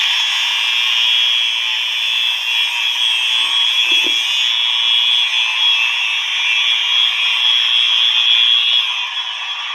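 Fire alarm horns sounding continuously with a loud, steady, unbroken tone, set off as a test.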